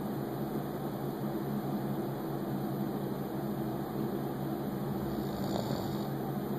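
Steady mechanical hum at an even level, with a faint snore from a sleeping person about five and a half seconds in.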